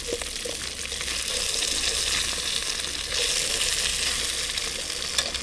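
Venison cheddar bratwurst patties sizzling steadily as they fry, nearly done, with a few small pops.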